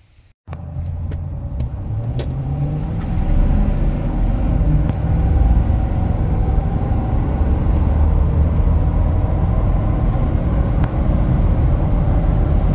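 A Ford F250's 6.7L Power Stroke turbo-diesel V8, on a performance tune, pulling hard under full acceleration, heard from inside the cab. It starts abruptly about half a second in, and its low rumble rises in pitch over the next few seconds, then holds steady.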